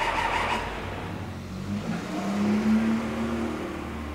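A car driving past on the street, its engine hum swelling about halfway through and then fading.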